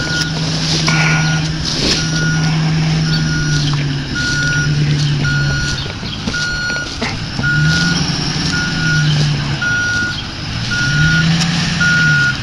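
Backup alarm of a working machine beeping steadily about once a second, over an engine whose pitch rises and falls as it works, with occasional knocks and clanks.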